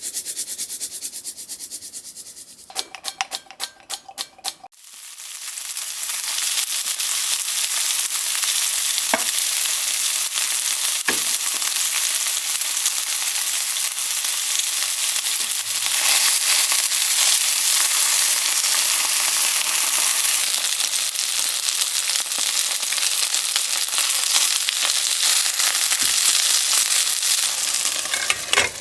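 A quick run of clicks, then food sizzling steadily in a hot frying pan, with a couple of light knocks.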